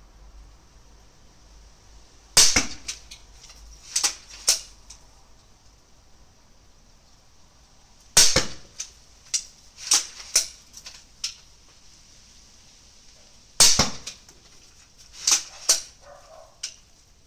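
Repeating pistol crossbow (Alligator 2 base) fired three times, each shot a sharp snap of the released string and limbs. Each shot is followed by a few smaller clacks as the cocking lever is worked to draw the string back and chamber the next bolt.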